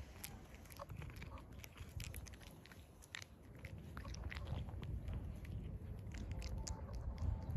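Cat chewing dry kibble: a fast, irregular run of small crisp crunches. A low rumble grows louder in the second half.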